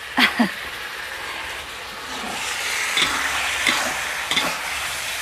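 Chicken pieces frying and sizzling in a wide steel wok, the sizzle louder through the second half, while a metal spatula stirs and clanks against the wok about three times. Two short, sharp sounds come just after the start.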